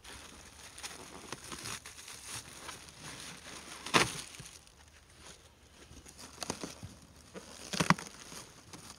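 Packing being pulled off the top of an engine's shipping box: scattered rustling and crinkling with small clicks, and two sharp knocks, one about four seconds in and one near the end.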